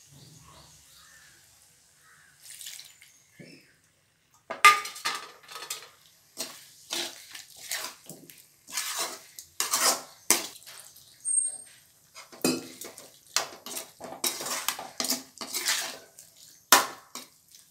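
Metal ladle scraping and clanking against an aluminium kadai as chopped goat intestine is stirred and fried. The strokes start about four seconds in and come about two a second.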